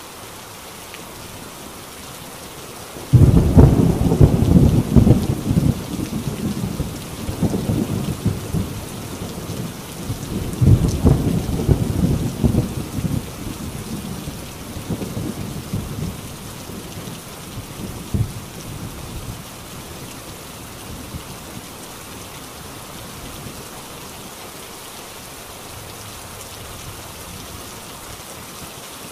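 Heavy rain falling steadily on a corrugated tin roof, with thunder that breaks suddenly about three seconds in and rumbles on in rolling waves, swelling again around ten seconds in, then fades away.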